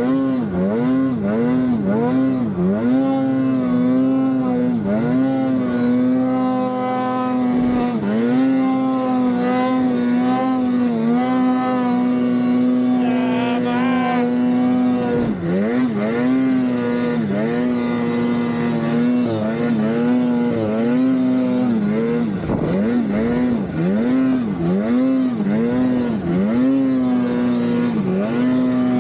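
Naturally aspirated two-stroke twin engine of a Polaris RMK Khaos mountain snowmobile running hard. The throttle is chopped and reopened again and again, so the engine note dips and climbs back up, about once a second in several bouts, between steadier stretches at high revs.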